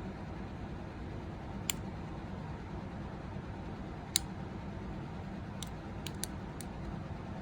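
Mechanical keyboard switch parts clicking as they are handled during lubing: about six small, sharp, scattered clicks, the loudest about four seconds in, over a steady background hum.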